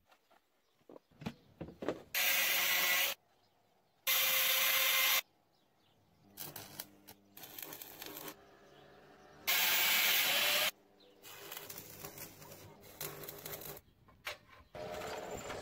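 Electric arc welding on a steel car chassis: three loud bursts of arc hiss about a second long each, two of them a couple of seconds apart near the start and the third near the middle. Quieter knocking and handling noises come between them.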